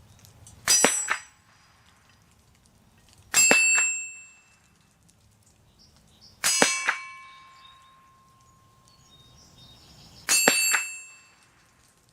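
Four shots from a Mossberg 715T .22 LR semi-automatic rifle, three to four seconds apart, each followed by the ringing clang of a steel target being hit at 50 yards. The third plate rings on in one steady tone for several seconds.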